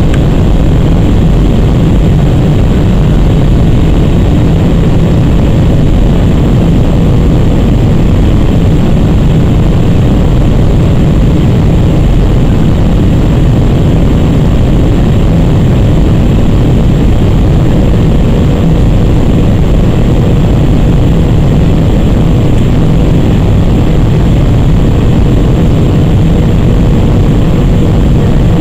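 Steady, loud rumble of Airbus A319-100 jet engines and airflow heard inside the passenger cabin during descent, with no changes or sudden sounds.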